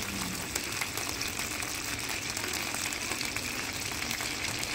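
A block of salted butter melting in a wok over a gas flame, giving a steady sizzle with fine crackling.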